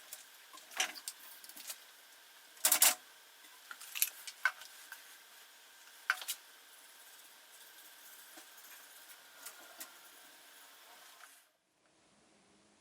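Scattered small clicks and metallic taps from handling a typewriter's mechanism, with a short louder clatter about three seconds in. The sound cuts off abruptly near the end.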